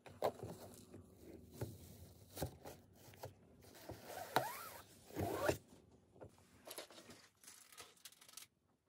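Satin ribbon being pulled loose and a clear plastic cake box being handled and opened: irregular plastic rustling and crinkling with small clicks and scrapes, busiest in the middle.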